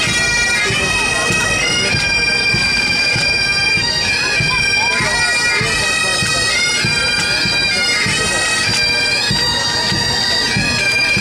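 Pipe band playing a march on bagpipes: a melody stepping between notes over the pipes' steady drone, with drums beating beneath.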